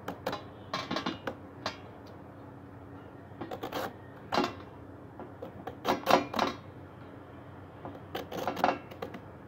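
A serrated vegetable peeler scraping strips of skin off a bottle gourd, in a series of short, irregularly spaced strokes.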